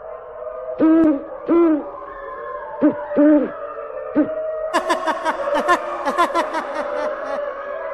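Eerie intro soundtrack: a sustained droning chord with owl hoots laid over it. About halfway through, a fast run of short, sharp repeated notes comes in.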